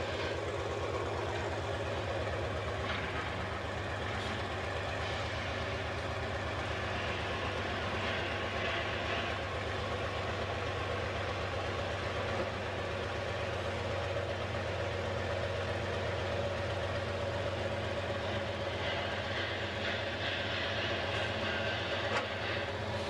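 Diesel engine of a Lima Model 65-T cable dragline running steadily with a fast, even low pulse while the machine works its bucket. The engine is a 220 Cummins.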